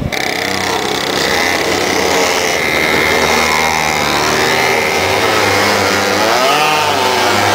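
Go-kart engines running in the paddock with a buzzing note, one of them revving up and back down about two-thirds of the way through.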